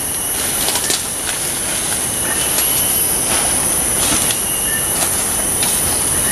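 Steady, high-pitched drone of forest insects throughout, with footsteps and the rustle of leaves and undergrowth as a person pushes through the brush.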